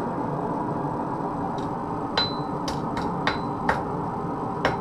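Blacksmith's hammer striking metal on an anvil: a run of about six sharp, uneven blows starting a couple of seconds in, several leaving a brief high ring, over steady forge background noise.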